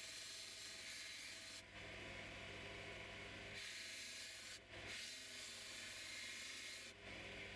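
Knife blade being sharpened on the slack side of the running abrasive belt of a Mado MNS630 belt sharpener: a steady grinding hiss over the machine's low hum, broken briefly about every three seconds as the blade is lifted between passes.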